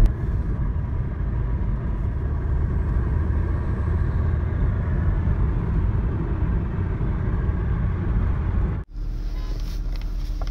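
Steady engine and road noise inside the cabin of a Skoda Octavia vRS driving along a highway. About nine seconds in it cuts out for an instant, then resumes as a steady hum with a faint low tone.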